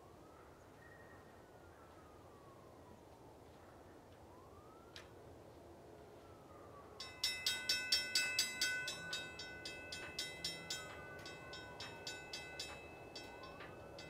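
Mechanical railroad crossing bell starting to ring about halfway through, rapid ringing strikes that grow weaker and uneven toward the end, as a cold bell that sticks a bit. A faint siren-like wail rises and falls throughout.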